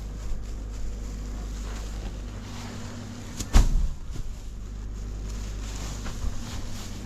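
A straw bale thrown down from the hayloft landing with one heavy thump about halfway through, over a steady low machine hum.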